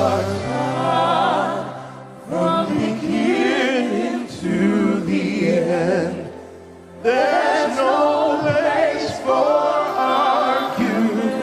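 Live gospel worship singing: long, wavering sung phrases over a steady, held low accompaniment. The phrases come in three runs, with short breaks about two seconds and six and a half seconds in.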